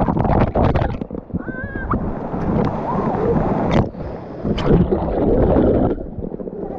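Water splashing and gurgling around a camera as it dips in and out of the water under a pool's spray. There is a short high squeal about one and a half seconds in.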